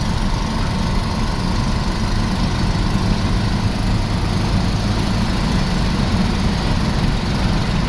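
1987 Chevrolet S10's 2.8-litre V6 engine running steadily, a constant low hum under a broad even noise.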